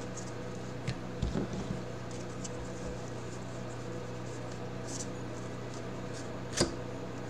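Baseball trading cards being flipped through and handled, a few soft clicks and flicks, the sharpest about six and a half seconds in, over a steady low hum.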